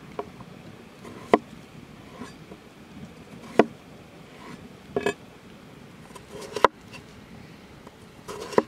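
Knife cutting raw potato on a wooden cutting board: about six cuts a second or two apart, each a short rasp as the blade goes through the potato ending in a sharp knock on the board.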